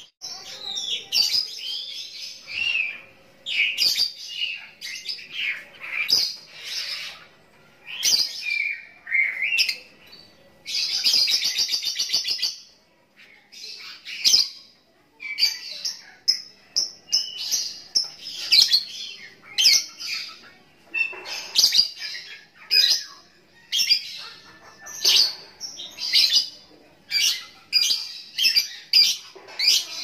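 Lovebird chirping in a fast, busy string of high squeaky chirps and twitters, with a long, rapid rattling trill about eleven seconds in.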